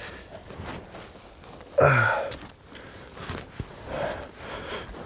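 A man's strained grunt of effort about two seconds in, between quieter breaths and faint scuffs, as he squeezes his body through a narrow hole in the rock.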